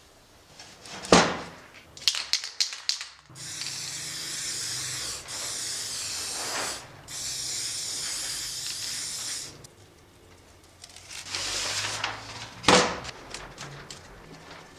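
Aerosol spray-paint can hissing in three long bursts of a few seconds each, coating a saw blade around a paper template. Before the spraying there is a sharp knock and a quick run of clicks, and another loud knock comes near the end.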